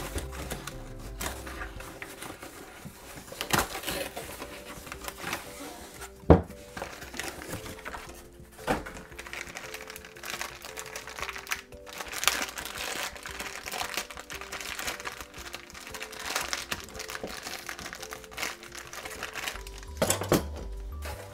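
Cardboard packing inserts being handled and pulled out of a toy dollhouse, crinkling and crackling, with a few sharp knocks, the loudest about six seconds in. Background music plays throughout.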